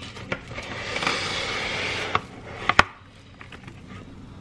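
Plastic cling wrap being pulled off its roll, a crinkly hiss lasting about a second, followed by a few sharp clicks and snaps as the wrap is cut and the cardboard box handled.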